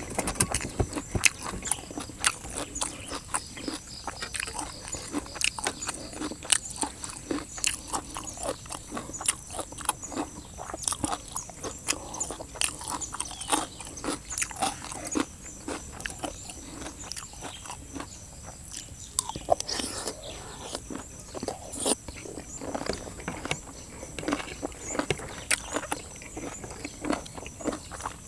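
Close-up chewing of spicy pounded chicken feet and raw vegetables: a steady run of quick crunches and mouth clicks.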